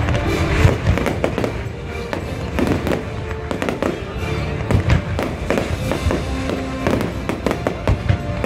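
Fireworks going off in quick, irregular bangs, with music playing underneath.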